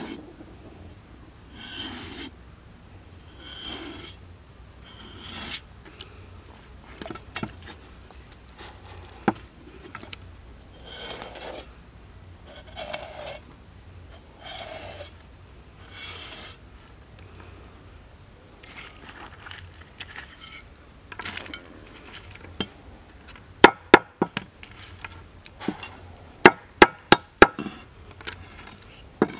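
Steel cleaver blade scraping over the scaly skin of a whole red fish on a wooden board, in slow rasping strokes about every two seconds. Near the end come a quick run of sharp knocks as the cleaver chops down on the board.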